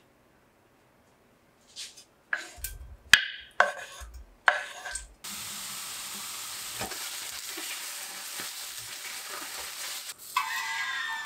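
Cubes of konjac dropping into a dry iron frying pan with a series of knocks, then a steady sizzle as they dry-fry without oil, cooking off their water. Near the end a wooden spatula stirs them with a squeaky scraping.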